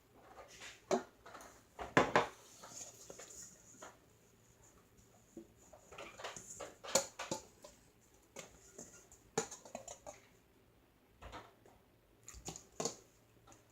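Hands working clear peel-off face mask slime, making irregular sticky clicks and crackles, with a couple of louder snaps about two and seven seconds in.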